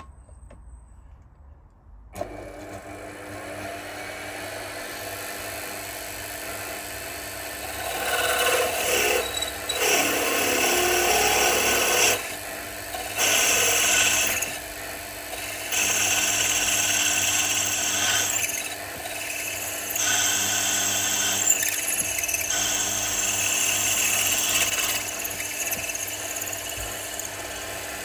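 Milling machine spindle starting up about two seconds in and running steadily, with a 15/64-inch twist drill cutting into the engine's base-frame lug. The cutting noise comes in spells of a few seconds with short pauses between them, as the drill is fed in and backed off.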